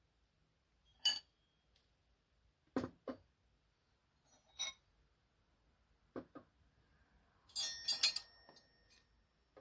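Steel wrenches clinking as they are set one by one into a plastic wrench rack: a handful of separate clinks, then a louder clatter of metal on metal about eight seconds in that rings briefly.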